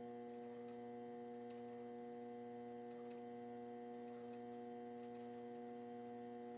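Electric potter's wheel motor humming steadily at one pitch while it spins with a clay pot being thrown on it.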